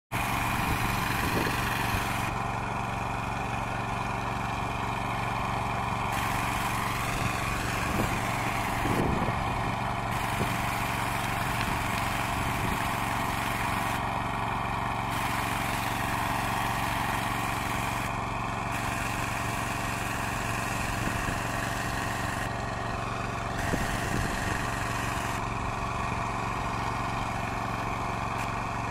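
An engine running steadily at a constant speed, an even drone with no change in pitch.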